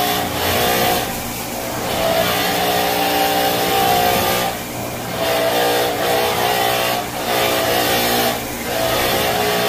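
Electric upright floor scrubber running on a wet hardwood floor, a steady motor hum with a hiss. It swells and eases about every one and a half to two seconds as the machine is pushed back and forth.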